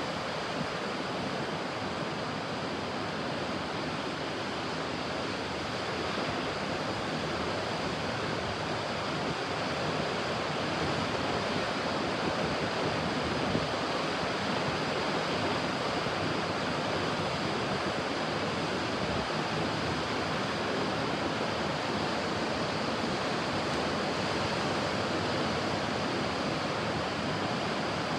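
Ocean surf: a steady wash of breaking waves, growing slightly louder about ten seconds in.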